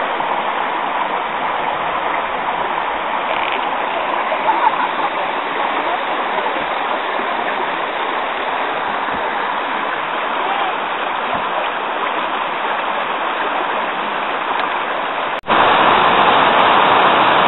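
Running water of a stream rushing steadily. About 15 seconds in it cuts off for an instant and returns noticeably louder, as from closer to the water.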